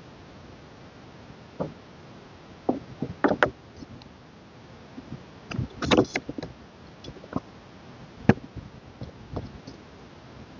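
Hands handling K-pop album packaging and its inclusions: irregular taps and clicks of card, paper and plastic, with the loudest clusters about a third of the way in and just past halfway.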